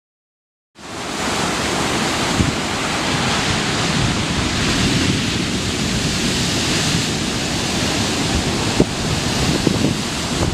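Ocean surf rushing steadily as a dense wash of water noise, starting abruptly about a second in, with low wind rumble on the microphone.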